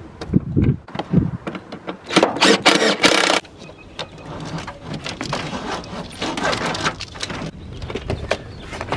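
Hand-work handling noise as a relay and its wiring are fitted in a truck's engine bay: a few dull knocks in the first second, a loud rasping scrape for about a second, then quieter rustling with small clicks.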